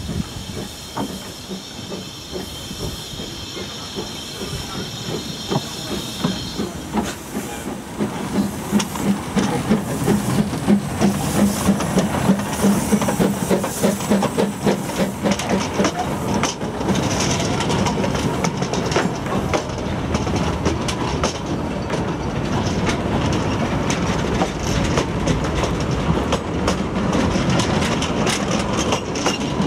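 Narrow-gauge 0-6-0T steam locomotive pulling away with its train. A steady hiss of steam cuts off about seven seconds in. Then comes the rhythmic chuff of its exhaust as it passes close by. The carriages follow, rolling past with a clickety-clack of wheels over the rail joints.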